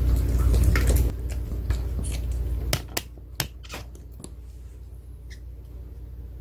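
Pomeranian chewing a hard probiotic dental chew stick, with sharp crunching clicks, several in quick succession around the middle. A low rumble is loudest in the first second, then drops away.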